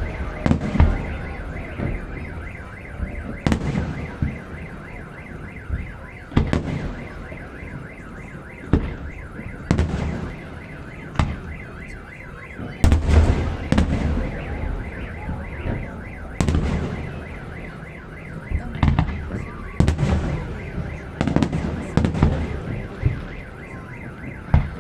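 Fireworks salvos booming one after another, irregularly every one to three seconds, over a continuous warbling alarm-like wail.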